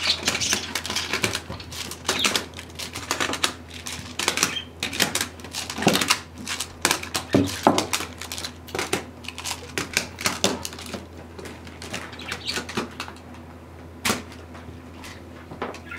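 Plastic magnetic building tiles (Magna-Tiles) clicking and clacking as they are snapped together and handled: a quick, irregular run of clicks that thins out after about eleven seconds, with one more sharp click a few seconds later.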